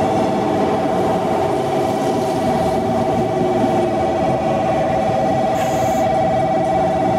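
Railway warning bell or buzzer ringing steadily with a rapid pulse, over low train and station rumble. A short high hiss comes about five and a half seconds in.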